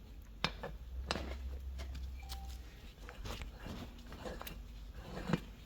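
Handling of a Stop & Go tire plug gun as it is screwed onto the nozzle in the tire: a few faint, sharp clicks and light scraping of the tool parts, over a low hum.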